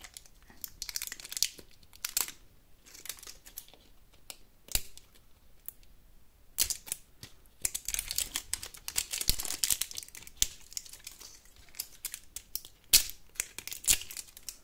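Glossy plastic wrapper of a LOL Surprise toy ball crinkling and tearing as it is peeled off by hand, with irregular sharp clicks and crackles, the loudest near the end.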